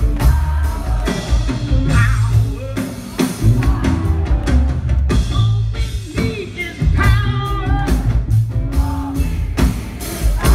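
Live rock band playing: drum kit and electric guitars under a male lead singer, with strong bass, heard from the audience in the hall.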